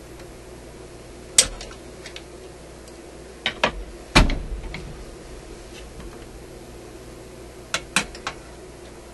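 Handling clicks and knocks as a small electrolytic capacitor and its wire leads are worked into place against a metal radio chassis: one click, then a cluster of knocks about four seconds in (the loudest), and another few clicks near the end, over a faint steady background hum.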